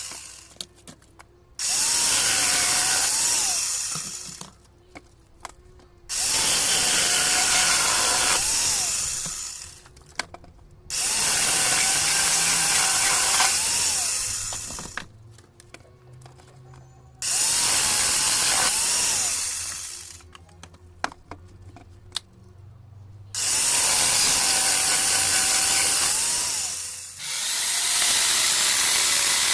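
Angle grinder fitted with a saw-chain attachment, run in repeated bursts of two to three seconds with short pauses between. Each burst spins up with a rising whine and winds down as it is released.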